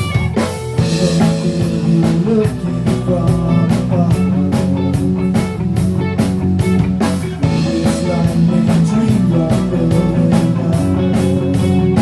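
A rock band playing an instrumental passage at rehearsal: guitar and bass holding sustained chords over a steady drum-kit beat, with no vocals.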